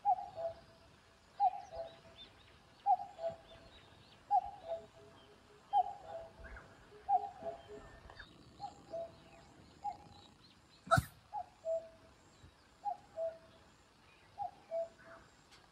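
Common cuckoo calling its two-note "cuck-oo" over and over, the second note lower, about one call every second and a half, with other small birds faint behind it. A single sharp click about eleven seconds in.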